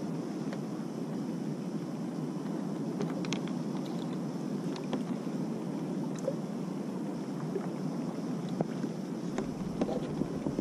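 Sea water washing around a kayak on the open sea: a steady low rush with scattered small ticks.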